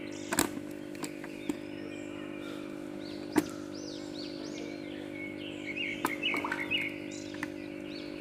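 Birds chirping in quick rising-and-falling calls, in bursts, over a steady low hum, with a few sharp taps; the loudest tap is about three and a half seconds in.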